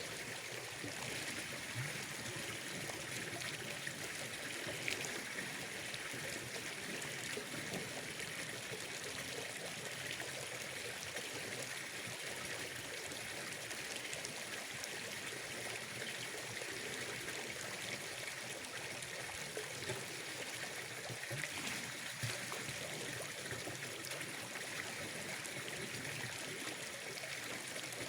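Steady trickling, running water at a pond, with a few faint ticks.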